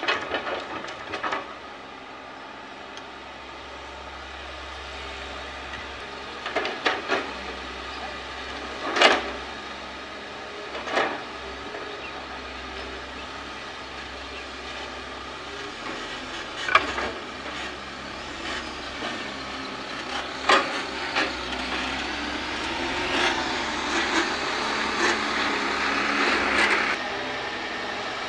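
Diesel engines of a Kobelco hydraulic excavator and an Isuzu dump truck running steadily, broken by about ten sharp knocks and clanks of soil and rock dropping into the truck's steel bed. The engine noise grows louder in the last few seconds.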